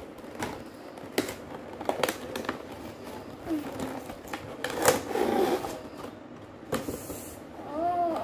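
Cardboard box and plastic packaging being handled and opened: rustling with scattered sharp taps and clicks, the loudest about five seconds in. A brief voice sound near the end.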